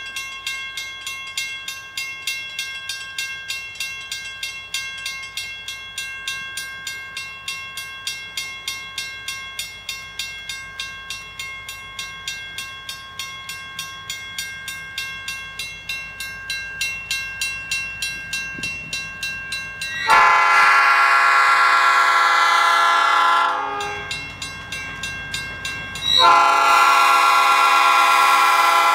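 A bell dinging steadily, about three strikes a second, as a Reading & Northern diesel locomotive approaches; about two-thirds of the way in the locomotive's air horn sounds a long blast of about three seconds, then a second long blast starts near the end and runs on, much louder than the bell.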